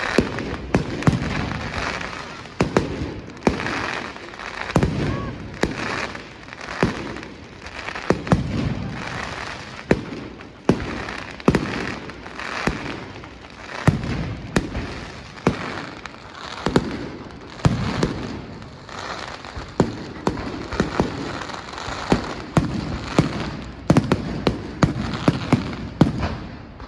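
Fireworks display going off: sharp bangs roughly every second, one after another, with a continuous crackling hiss between them.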